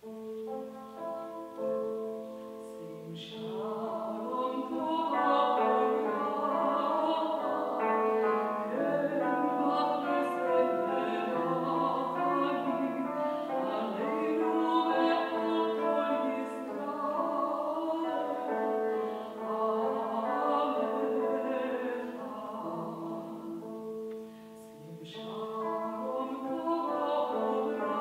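A female classical singer sings in operatic style, accompanied by a cimbalom struck with hammers. The music starts out of silence with a long held note and grows fuller about three seconds in, with many short struck notes; it dips briefly near the end before carrying on.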